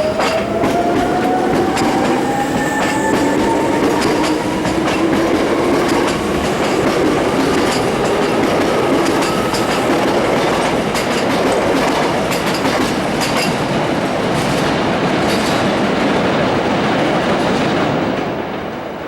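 Electric train running along the track: a motor whine rises in pitch over the first several seconds while the wheels click repeatedly over rail joints. The noise eases off near the end.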